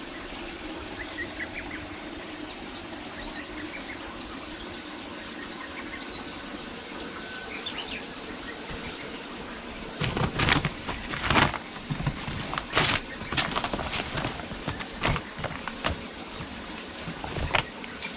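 Plastic tarpaulin sheet crinkling and rustling in irregular loud bursts as a kitten scrambles and paws over it, starting about ten seconds in; before that only a faint steady background.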